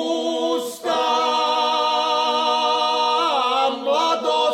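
Male folk group from Bansko singing unaccompanied: a Pirin folk song in long held notes. There is a short break just under a second in, and the voices slide in pitch a little after three seconds.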